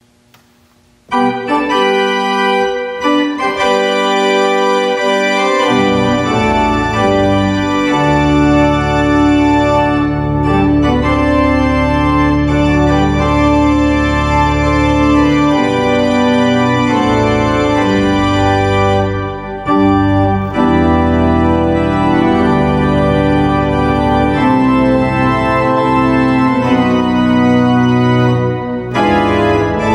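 Organ music: slow, sustained chords, with deep held bass notes coming in after several seconds. It starts about a second in.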